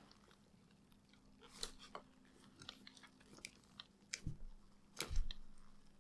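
Scattered small clicks, taps and scrapes from handling the toy phone and the power supply's clip leads, with a sharper knock about five seconds in. A faint steady low hum runs underneath.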